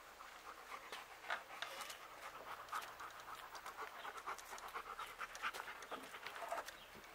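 Large black-and-white long-haired dog panting rapidly right beside the microphone.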